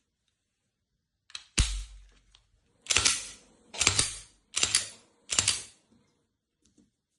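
Hard parts being handled and snapped together: a click, then a sharp snap with a dull thud, then four short scraping clacks about a second apart. These fit a red-dot sight being seated on and pulled off a magnetic mount.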